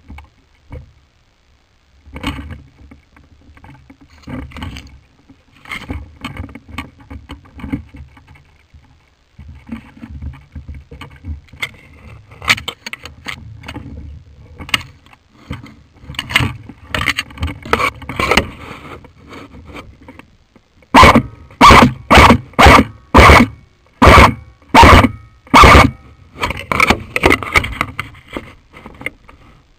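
Irregular rustling and scraping, then a run of about nine very loud knocks or thuds, roughly two a second, before the rustling resumes.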